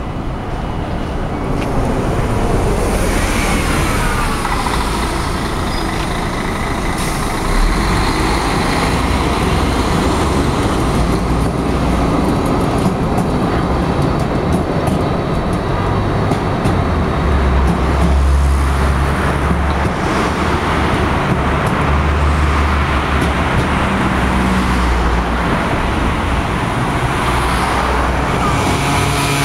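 A Karlsruhe Stadtbahn dual-voltage tram passes close by on street track amid steady road traffic, with pitch glides from its drive in the first few seconds. A deeper rumble from passing road vehicles builds in the second half.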